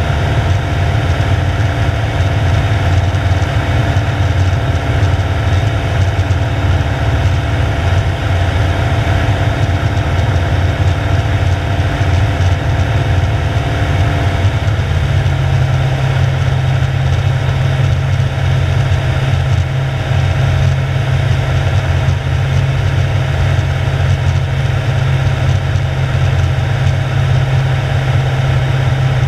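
Piston engine and propeller of a single-engine light aircraft, heard as a steady drone inside the cockpit. About halfway through, the engine note steps slightly lower as power is changed on the approach to the runway.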